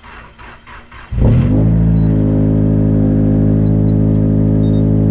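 Nissan Silvia S14's SR20 four-cylinder engine cranking briefly on the starter, catching about a second in, then flaring up and settling into a steady idle. The engine is one with a misfire being chased.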